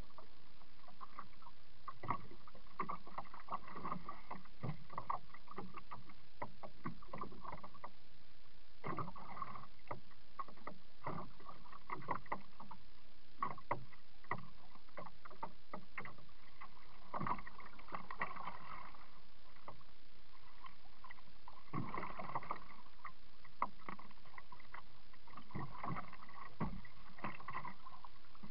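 Water splashing and lapping against the plastic hull of a Pelican 80 kayak as it is paddled, with clusters of small knocks every few seconds over a steady hiss, heard through a sealed waterproof camera mounted on the kayak.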